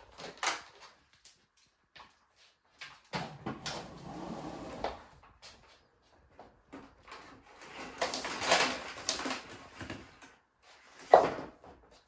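Handling noises from a canister vacuum cleaner that is not running: clicks and knocks, and two stretches of scraping and rustling as the machine and its hose are moved about on a laminate floor. A sharp knock near the end is the loudest sound.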